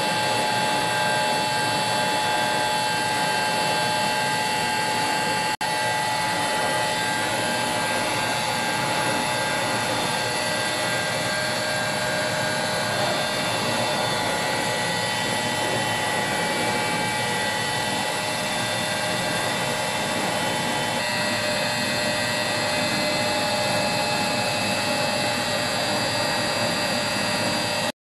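Epilog Fusion M2 laser cutter running as it cuts a face-shield headband from Forex PVC foam sheet: a steady whirring rush from the machine and its fume-extraction blower, with several steady whining tones. It cuts off abruptly just before the end.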